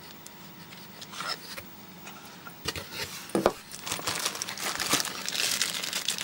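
Clear plastic accessory bags crinkling as hands rummage through them. It is sparse at first with a couple of light knocks, then busier and louder from about four seconds in.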